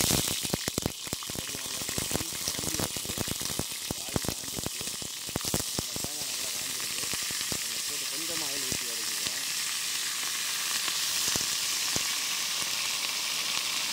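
Minced mutton sizzling in hot oil in an iron kadai as handfuls are dropped in and spread, a steady hiss with frequent sharp clicks in the first half.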